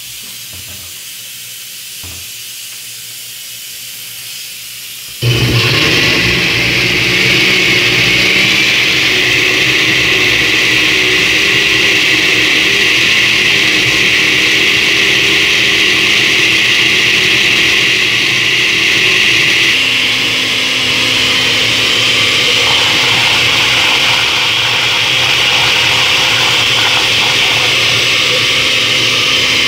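For about five seconds there is a quieter steady hiss. Then a countertop blender motor starts abruptly and runs steadily, grinding dried chiles costeños in hot meat broth into a purée. About twenty seconds in, its tone shifts a little lower.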